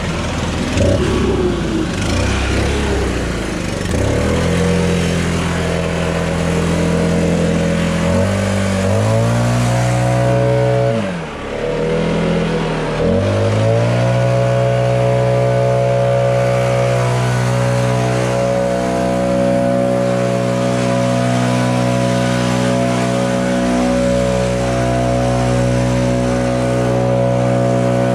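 Stihl BR 800 Magnum two-stroke backpack blower running. It climbs to a higher engine speed about eight seconds in, drops back and revs up again twice near the middle, then holds at full throttle while blowing wet snow.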